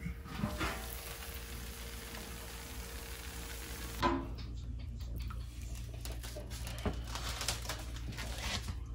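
Lids of electric roaster ovens handled and lifted off, with light clinks and a few small clicks over a low steady hum. The sharpest knock comes about four seconds in.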